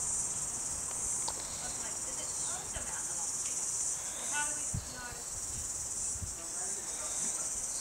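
Steady high-pitched chorus of insects, with a few faint chirps about four and a half seconds in.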